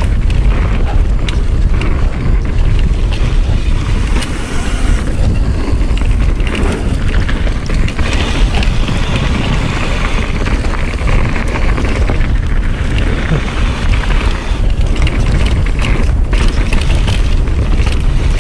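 Mountain bike descending a fast dirt trail: wind rushing loudly over the microphone and the rumble of tyres on dirt, with frequent clattering knocks from the bike over bumps.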